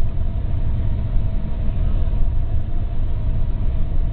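Four-wheel-drive vehicle driving in four-high over icy snow: a steady low rumble of engine and tyres.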